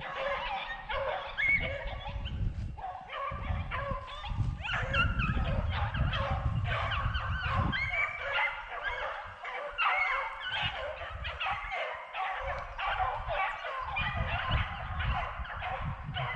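A pack of beagles baying and barking on a rabbit's track, many hound voices overlapping without a break, with bouts of low rumble on the microphone.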